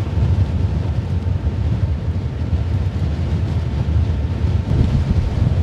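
Strong wind-tunnel airstream buffeting the microphone: a loud, steady, blustery low rumble of wind at around 10 metres per second or more.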